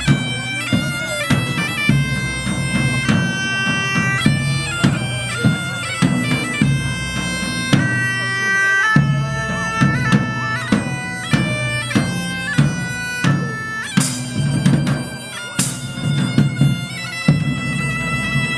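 Bagpipe playing a lively tune over its steady drone, with a large drum beaten with a stick keeping a regular beat.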